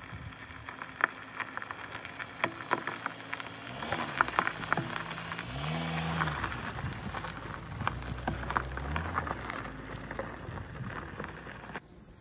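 A Honda CR-V SUV driving slowly over a gravel road, its tyres crunching and popping stones in a dense crackle, with a low engine and tyre hum that grows as it nears and passes close about halfway through. The sound cuts off abruptly near the end.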